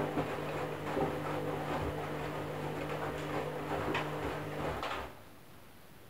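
Candy front-loading washing machine tumbling a wet load: the drum motor hums steadily under irregular swishing and knocking from the clothes and water. The motor cuts out about five seconds in as the drum comes to rest.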